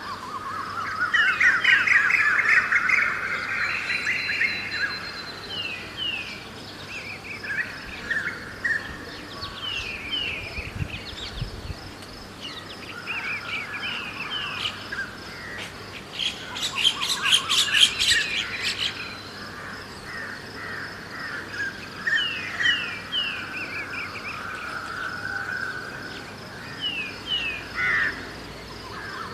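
Several birds chirping and calling, with many short, repeated, downward-sliding notes. A loud burst of rapid chattering calls comes about a second in, and a harsher, louder run of rapid calls just past halfway.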